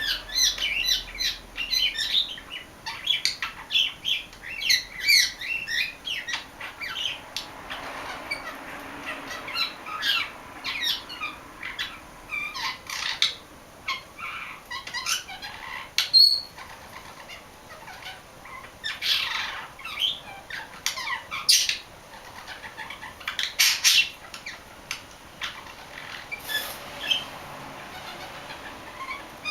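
English budgerigar warbling: a long, irregular stream of short chirps, chatter and squawky notes, one after another with brief pauses.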